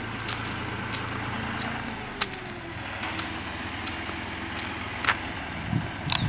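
A motor engine running steadily with a low hum, its pitch shifting slightly partway through, with scattered faint clicks and a few bird chirps near the end.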